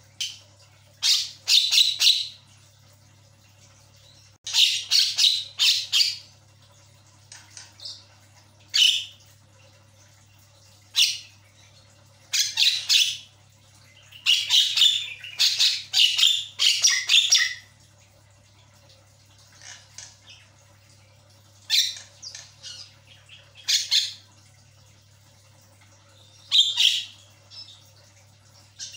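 Javan myna calling in clusters of harsh, scratchy squawks and chatter, each run lasting a second or two, with pauses between them.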